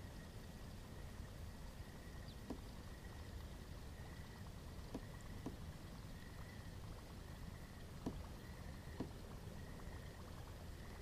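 A baitcasting-style fishing reel being cranked steadily to retrieve a buzzbait, heard as a faint whir that swells about once a second. A few light knocks against the plastic kayak hull break in.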